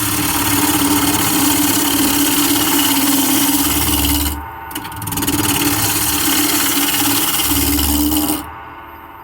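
Bowl gouge cutting a spinning square mahogany block on a wood lathe at about 1,200 RPM, roughing off the corners: two long cutting passes with a short break about four and a half seconds in. The cutting stops near the end, leaving the lathe running.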